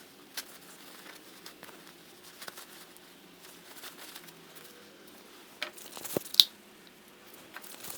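Light handling noises: scattered clicks, taps and crinkling over a faint steady hum, with a sharp click about six and a half seconds in.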